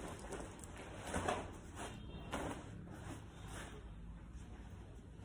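Faint rustling and handling noises from a camouflage shirt being moved, with a few soft swishes and scrapes.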